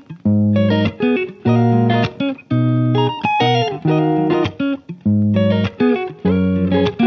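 Background music: a plucked guitar melody over bass, in short rhythmic phrases.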